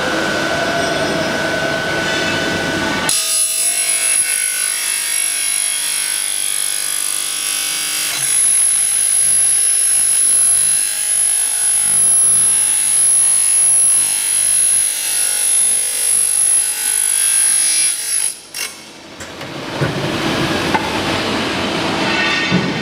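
Byfo spiral duct forming machine running, rolling metal strip into spiral-seamed duct: a steady mechanical grinding and rubbing with a thin, high steady whine that stops near the end.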